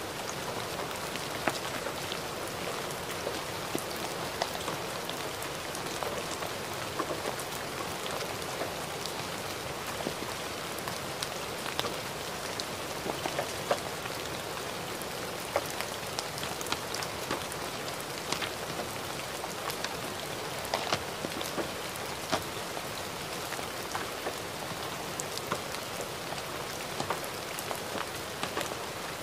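Gentle rain falling steadily: a soft, even hiss with frequent sharp drop ticks at irregular intervals.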